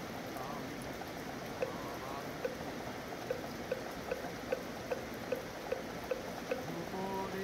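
Steady rain, with a moktak (Buddhist wooden fish) struck in an even beat of about two and a half knocks a second, starting about a second and a half in and stopping near the end. A monk's chanting voice comes in just before the end.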